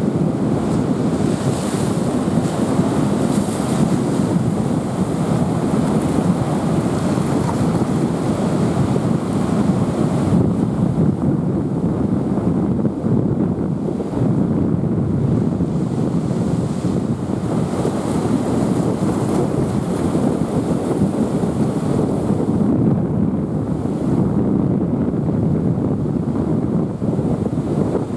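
Rough, typhoon-stirred sea: surf breaking and rushing without pause, with strong wind buffeting the microphone.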